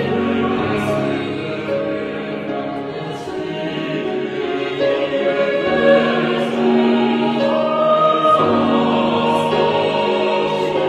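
Choir singing in parts, the voices holding long sustained chords.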